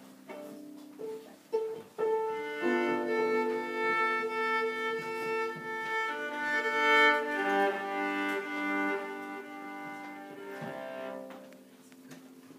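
A bowed string instrument held under the chin, played with a German-style bow, enters about two seconds in over soft piano and plays long held notes with piano accompaniment, fading near the end.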